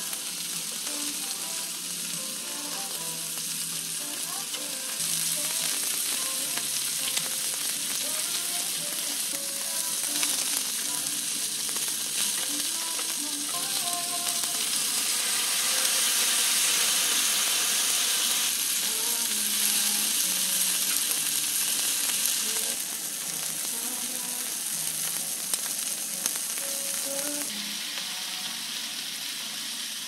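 Pork neck and kimchi sizzling on a hot flat Korean BBQ griddle, a steady frying hiss that grows louder in the middle and eases near the end.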